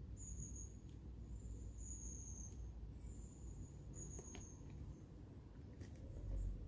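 Wind rumbling on the microphone, with a faint high chirp, one short steady note repeating about once a second, and a few soft clicks.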